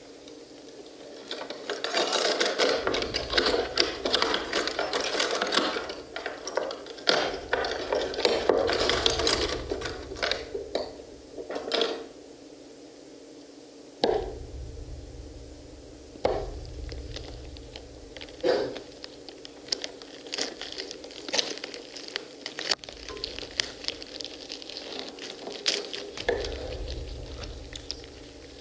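Knife blades cutting and stabbing into pomegranates and fingers breaking out the arils: dense wet crackling and cracking at first, then sparser sharp knocks, one as a knife stabs down about halfway through.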